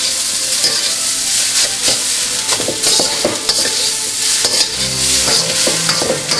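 Fried rice sizzling in a hot wok while it is stirred and broken up, with frequent sharp clacks and scrapes of the stirring tool against the wok.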